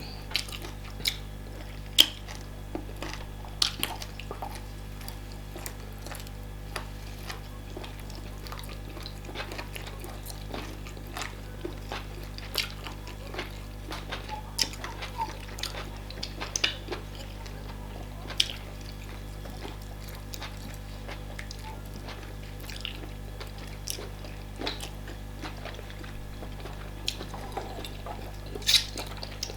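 Wet eating sounds of fufu and banga soup being eaten: scattered short smacks and clicks of mouths chewing and swallowing, over a steady low hum.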